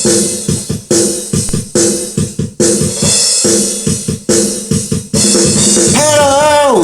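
Keyboard song intro: a held chord over a steady drum-kit beat. A singing voice comes in near the end with a long gliding note.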